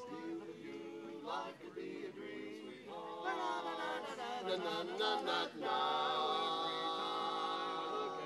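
Male quartet singing a cappella in close harmony, growing louder about three seconds in and ending on a long held chord.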